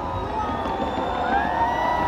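Crowd cheering and whooping at a fireworks display, with one long held whoop starting about halfway through, over a low rumble.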